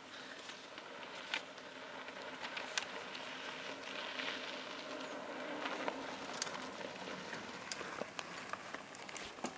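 Faint crinkling and rustling of a paper map being handled and unfolded, with a few sharp clicks.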